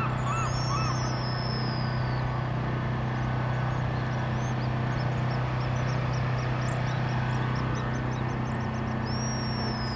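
High, thin whistled seabird calls: a long falling whistle with a trill near the start and again at the end, and a quick run of short repeated high notes in the middle, over a steady low hum.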